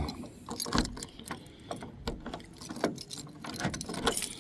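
Irregular light clicks and ticks of a bunch of keys being handled.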